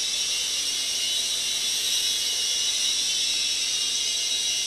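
JH Transforming Chopper (J288), a small three-channel coaxial RC helicopter, in flight: a steady high whir from its motors and counter-rotating rotor blades.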